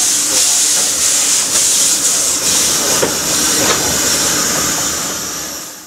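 Narrow-gauge steam locomotive moving slowly with steam hissing steadily from around its cylinders, the sound of open cylinder drain cocks. The hiss fades away near the end.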